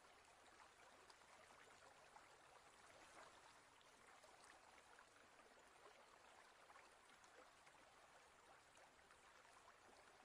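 Faint, steady trickling and bubbling of aquarium water, with many tiny ticks.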